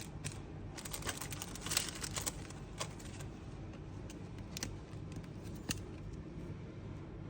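Pokémon trading card packs and cards being handled: crinkling foil wrappers and quick small clicks and rustles, busiest in the first couple of seconds, then more scattered, over a low steady hum.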